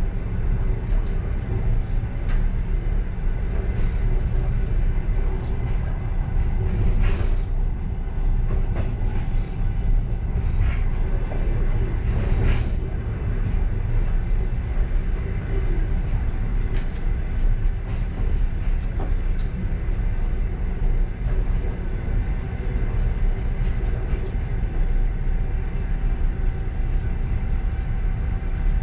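Steady low rumble of a passenger train running on the rails, heard from inside the last car. Occasional faint clicks and knocks ride on top, with stronger ones about seven and twelve seconds in.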